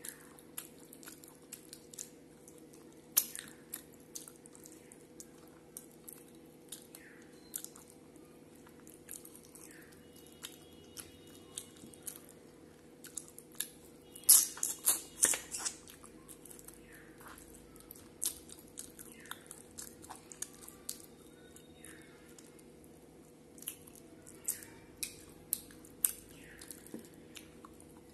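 Close-miked chewing and mouth sounds of a person eating food by hand: scattered wet smacks and crunchy clicks, with a louder, denser run of crunching about halfway through. A faint steady hum runs underneath.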